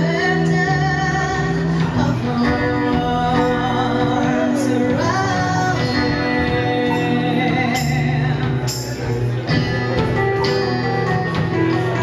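Live band music: a woman singing lead with vibrato over acoustic guitar and drums, with a few cymbal crashes.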